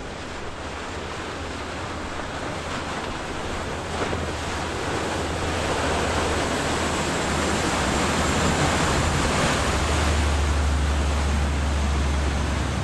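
Large sportfishing yacht's inboard diesel engines droning low and steady under a broad rush of wake and surf, with wind on the microphone. The engine drone grows much louder over the last few seconds as the boat passes close.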